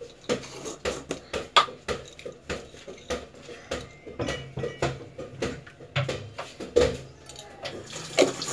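Spoon clicking and scraping against a plastic jar as salt is scooped out, with the jar's screw lid being handled: an irregular string of light clicks and knocks, several a second.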